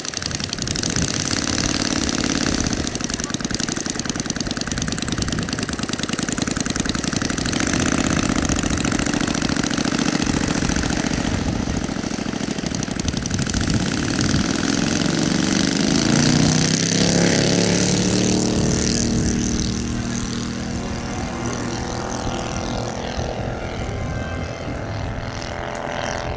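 Engine and propeller of a large-scale radio-controlled Spitfire model running on the ground. About fourteen seconds in, the engine is opened up and its pitch rises for the takeoff run. It then grows fainter as the model climbs away.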